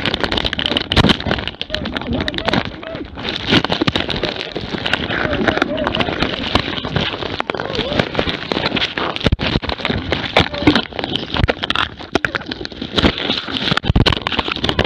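Camera strapped to a running hunting dog, jolted and scraped: a dense clatter of knocks and rustles against fur and brush, with wavering voice-like sounds among them.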